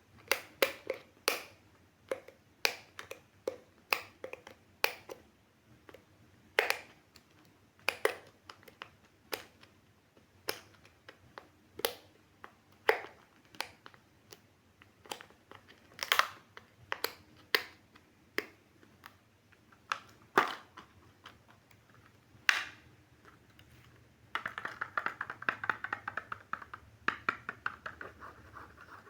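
Handling of plastic toy and egg packaging: a string of sharp, irregular clicks and snaps. In the last few seconds it turns to a dense, rapid crinkling rattle.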